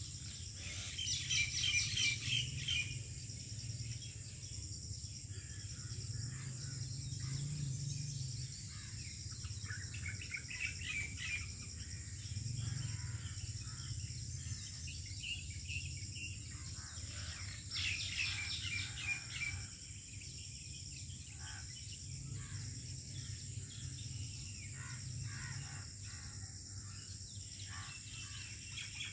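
Birds chirping and trilling in short bursts every several seconds, loudest about a second in and again near 18 seconds, over a steady high insect drone and a low background rumble.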